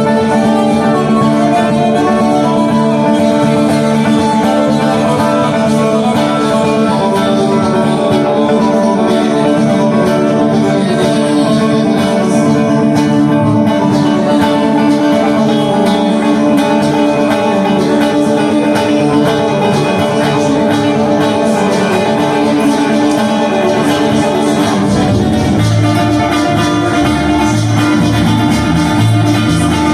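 Acoustic guitars picking and strumming through an instrumental passage over a bass line; about 25 seconds in, the low bass notes come through more strongly as separate notes.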